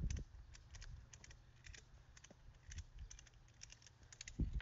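Faint, light clicking in quick short clusters, a few times a second and irregularly spaced, over a low steady hum.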